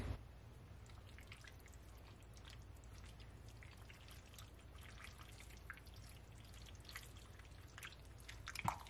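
Faint wet squelching and soft ticks of a spoon stirring shredded cheddar into thick chili mac in a slow cooker's crock, with a slightly louder tick near the end.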